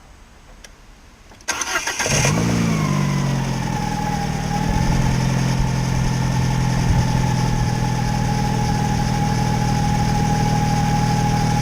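Alfa Romeo GT engine cranked on the starter, catching about two seconds in with a short flare of revs, then settling into a steady idle. The owner still finds a minor misfire after cleaning oil from the spark plug tubes and adjusting the coil extenders.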